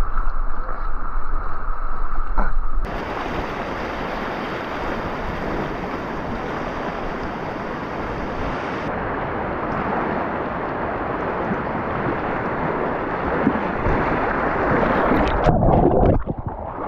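River whitewater rushing past a kayak: a steady, even noise of moving water, with wind on the microphone. The sound changes abruptly about three seconds in, and short splashes come near the end.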